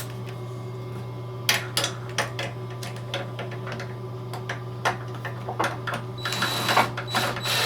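Hand tools being handled, with scattered sharp clicks and knocks, then a quick run of socket-ratchet clicking from about six seconds in as the cover screws are driven.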